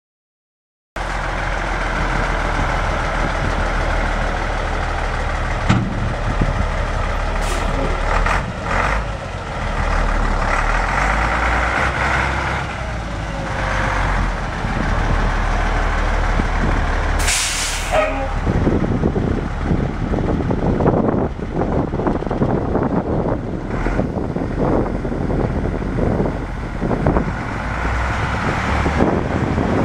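Caterpillar 3306 inline-six diesel engine of a 1997 Ford Louisville dump truck idling steadily, with a short hiss of released air about two-thirds of the way through.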